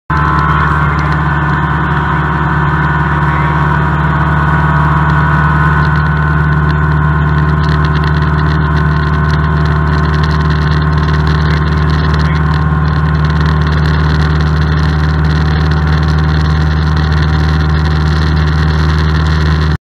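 Cessna light aircraft's piston engine and propeller heard inside the cabin in flight: a loud, steady drone with a deep hum.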